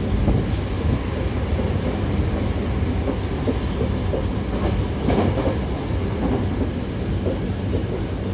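Hankyu electric train car running at speed, heard from inside the cabin: a steady rumble of wheels on rail under a low hum, with irregular clacks over the track that bunch together about five seconds in.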